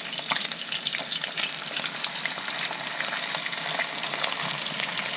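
Flour-dredged snapper frying in a pot of hot oil: a steady sizzle thick with small pops and crackles.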